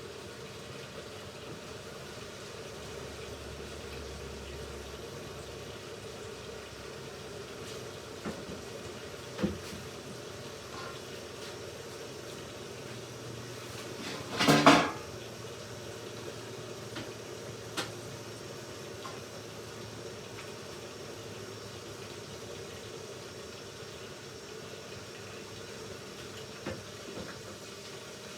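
Hoover Ecologic Computer Washer 1300 running its rinse programme: a steady churning of the drum and water, with one loud clunk about halfway through and a few lighter knocks.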